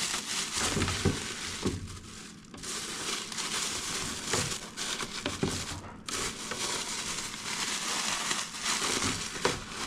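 Plastic food packaging crinkling and rustling as it is handled, with a few light knocks.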